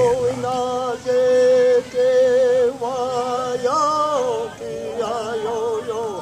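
A man singing a Mohawk song unaccompanied in long held notes of about a second each, the pitch wavering with vibrato toward the end.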